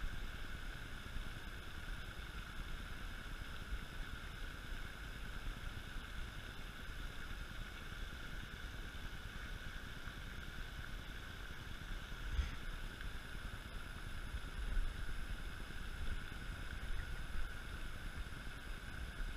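Wind rumbling on the microphone outdoors, over a steady high-pitched drone that holds unchanged throughout, with a faint tick or knock about twelve seconds in.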